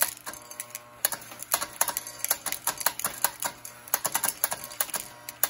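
Postwar Lionel 97 coal elevator running, its bucket conveyor clattering with rapid, irregular clicks as it carries and drops coffee beans used in place of coal, over a faint steady hum.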